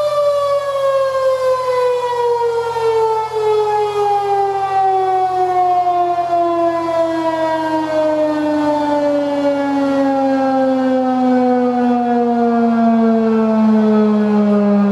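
Federal Signal 2001-SRN outdoor warning siren winding down, its single tone falling slowly and steadily in pitch from a mid note to a low one as the rotor coasts down at the end of a test.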